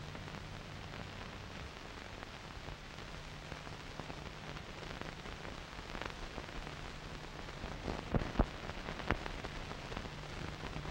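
Noise from an old 16mm film print's optical soundtrack: steady hiss and crackle with a faint low hum, and a few sharp pops near the end.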